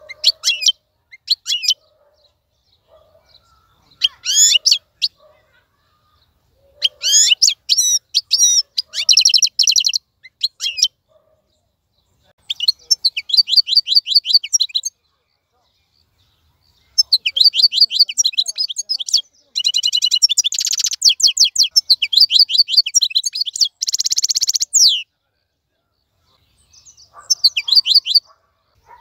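Wild-caught European goldfinch singing: bursts of fast, high twittering notes broken by short pauses. The longest run lasts about eight seconds and has buzzy trills in it.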